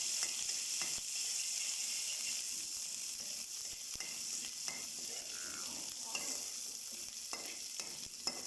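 Ginger-garlic paste sizzling in hot oil in a metal karahi, stirred with a metal ladle that clicks against the pan several times.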